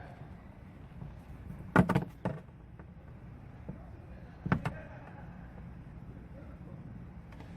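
Flathead screwdriver prying white plastic push-clips out from under a car's rear body panel: a quick cluster of sharp plastic clicks and snaps about two seconds in, and another pair about four and a half seconds in.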